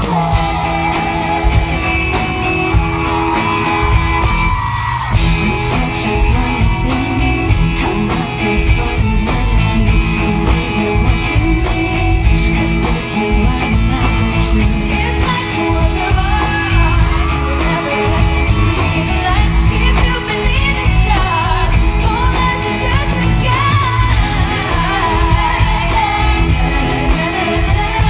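Pop song with female singing over a full band backing with a steady beat.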